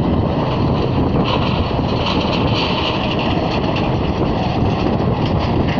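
Steady jet engine noise from an airliner rolling along a distant runway, mixed with wind buffeting the phone's microphone.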